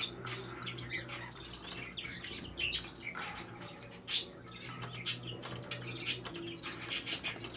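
Young English budgies chattering with scattered short chirps and squawks, along with small clicks and taps at irregular moments.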